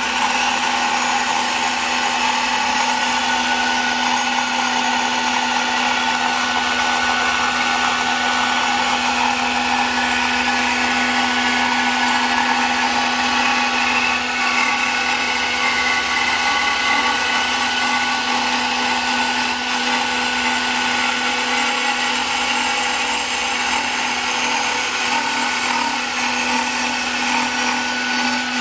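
5-axis CNC router spindle running at a steady high-speed whine as its cutter trims a carbon fiber helmet shell.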